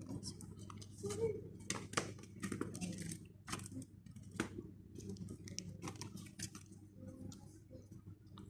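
Irregular clicks and rustles of hands handling small plastic toy parts and packaging.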